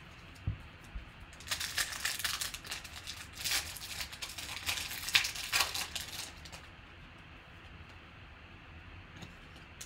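Wrapper of a pack of trading cards being torn open and crinkled by hand, an irregular crackle lasting about five seconds.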